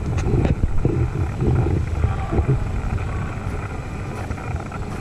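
Steady low rumble of outdoor street ambience, with faint voices now and then in the first half.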